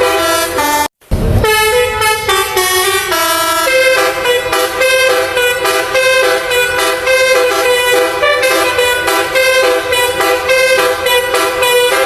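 Multi-tone telolet air horn on the QQ Trans bus 'Nabila' playing a running melody of horn notes, with a brief break about a second in.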